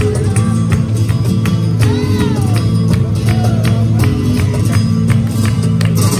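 Flamenco music: a strummed acoustic guitar with rhythmic hand clapping (palmas) and cajón.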